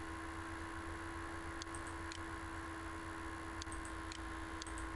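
Steady electrical hum and hiss of a computer-recording microphone, with a few faint, sharp computer-mouse clicks spread across the second half.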